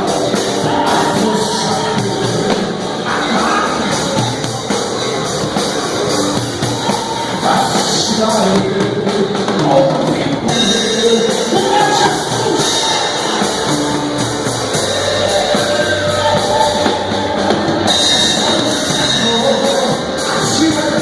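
Live gospel music: voices singing over a band with a drum kit.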